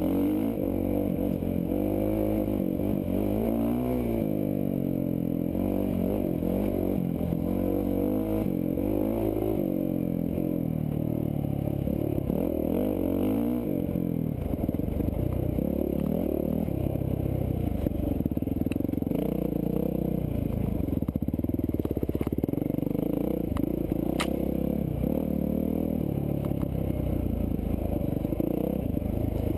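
Dirt bike engine running under load, its revs rising and falling continually as the throttle is worked over rough ground. There is one sharp click near the end.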